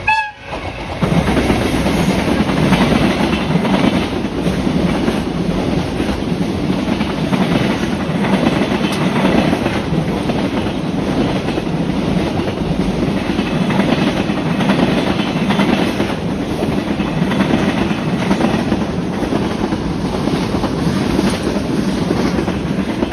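Freight train hauled by an EF210 electric locomotive passing at high speed, a long steady rush of wagons with wheels clattering over the rail joints. A brief horn note sounds right at the start, just before the rush comes up suddenly about a second in.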